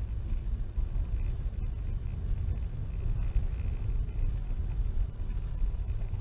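Steady low rumble of a car driving along a snowy road, engine and tyre noise heard from inside the cabin.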